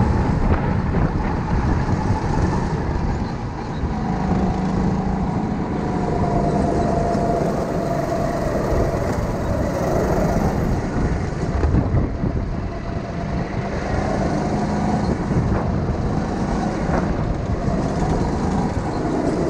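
Rental go-kart driven around a track, heard from on board: its motor's note rises and falls with the throttle over a steady rush of noise.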